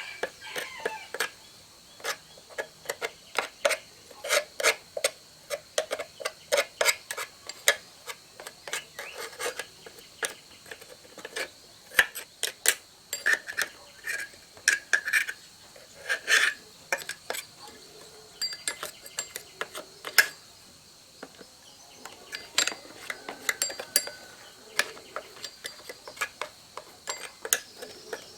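Hand tools and small metal chainsaw parts clicking, tapping and clinking in quick irregular strokes as the saw is worked on by hand. A faint steady high hum runs underneath.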